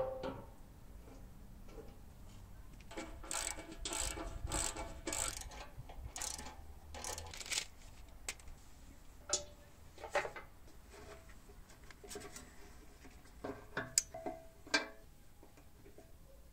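Hand-assembly noises of metal motorcycle parts and a wrench while the fuel tank and fuel tap are fitted: a run of short rasping strokes, then scattered sharp clicks and taps.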